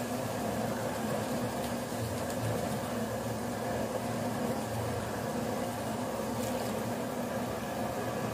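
Sweet pani puri water boiling in an aluminium pot on the stove, a steady, even bubbling hum.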